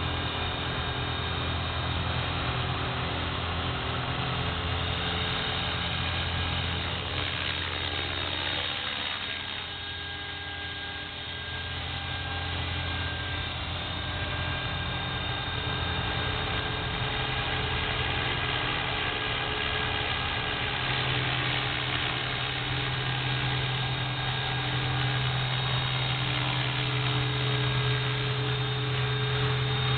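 EXI450 electric 450-size RC helicopter in flight: a steady whine of motor and rotor blades with several held tones. It dips and quietens about ten seconds in, then steadies with a stronger low hum from about twenty seconds in.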